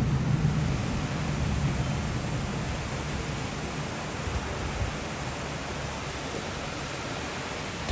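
Heavy rain pouring steadily, with the low rumble of a thunderclap dying away over the first few seconds.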